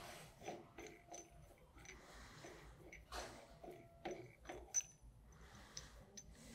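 Faint metallic clicks and handling noise as a rotor nut is turned off a pump shaft by hand and set down, with one sharper click a little before the five-second mark.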